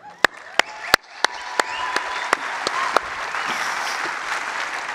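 Audience applauding: a few separate claps at first, then the applause swells within about a second into steady clapping.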